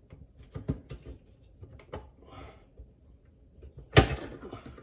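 Plastic retaining clips on a dishwasher's lower wash-arm assembly being worked loose by hand: scattered small clicks and knocks, then one loud snap about four seconds in.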